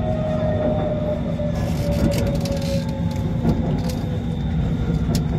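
Inside a Bangkok BTS Skytrain car in motion: a steady low rumble with a thin motor whine that slowly falls in pitch as the train slows toward the next station.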